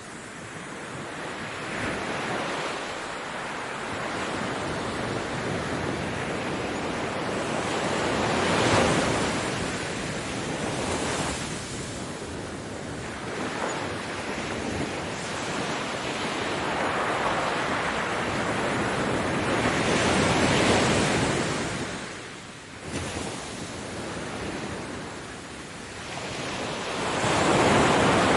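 Ocean surf breaking on a beach: a continuous wash of water that swells and ebbs as waves break and run up, every few seconds, with a short lull about three-quarters of the way through.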